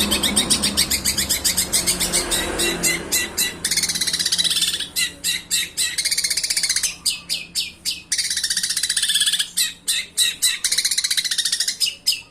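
Small birds chattering in rapid trains of short, high chirps, about eight to ten a second. The trains run unbroken for the first few seconds, then come in bursts with short gaps between them.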